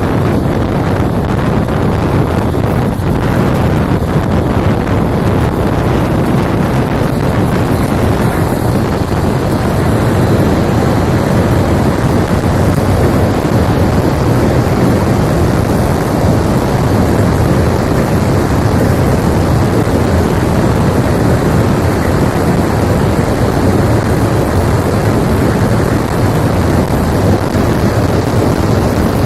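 Wind buffeting the microphone in a steady, loud rush, with a low rumble underneath.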